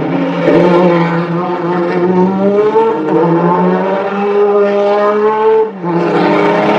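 Porsche 935 Kremer K3 race car's twin-turbo flat-six running hard on track, its pitch climbing slowly. Near the end the engine note drops out for a moment, then picks up again at a lower pitch.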